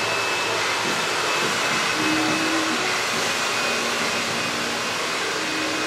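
Hair dryers running steadily: a constant rushing of air with a thin high whine.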